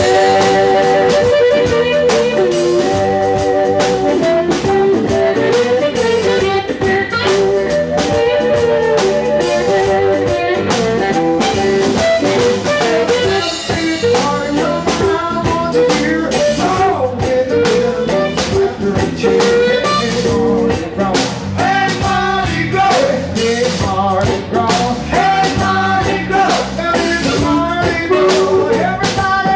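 Live blues band playing an upbeat zydeco-flavoured tune, with amplified harmonica carrying wavering lead lines over electric guitar, bass and drum kit.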